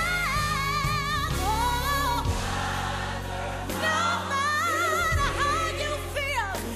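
Gospel music: a singer with wide vibrato over a choir and band, with held bass notes underneath.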